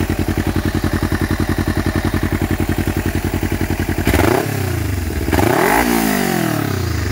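Kawasaki Ninja 250's parallel-twin engine idling steadily through a Proliner TR1 carbon slip-on exhaust, then blipped twice, about four and five and a half seconds in, each rev rising and falling back to idle. A calm, mellow exhaust note, very like the stock silencer.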